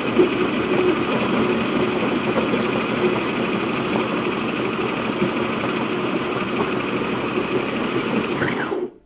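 Grinding mill with a metal hopper running steadily under load, milling ginger into powder as it is pushed down the hopper with a stick; the machine sound cuts off suddenly near the end.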